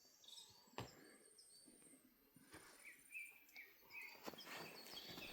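Faint outdoor ambience with scattered short bird chirps and a soft knock about a second in.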